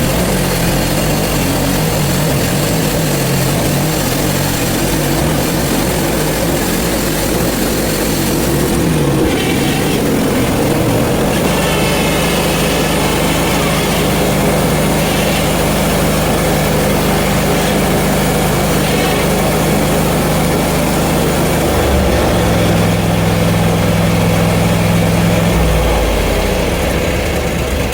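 Portable bandsaw sawmill's engine running steadily while sawing a hard sugar maple log; its pitch shifts about ten seconds in and again about twenty-two seconds in.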